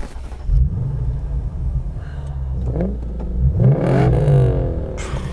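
Lexus IS F's naturally aspirated 5.0-litre V8 heard through its exhaust, running at idle and revved twice: a short blip, then a longer rev that climbs and falls back to idle.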